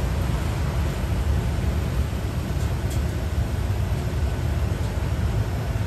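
Automatic gantry car wash machine running with a steady, even rushing noise as it passes over the car.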